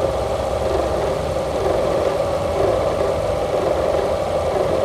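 Car engine idling with a rattle from the engine compartment as the engine is rocked on its mounts; the mechanic traces the noise to a motor mount, since pressing on the mount makes it go away.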